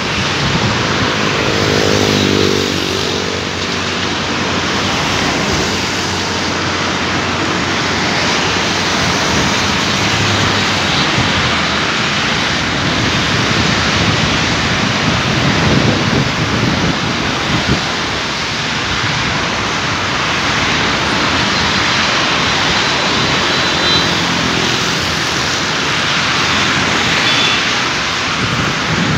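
Road traffic on a busy multi-lane boulevard: a steady hiss of tyres and engines from passing cars, with one engine's hum standing out in the first few seconds and again near the end.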